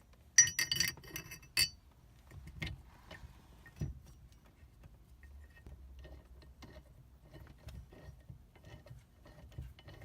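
A 16 mm steering-column nut and socket clinking metallically, with a loud ringing cluster just under a second into the sound. Light irregular clicks and taps follow as the nut is run onto the steering column shaft to hold the hub.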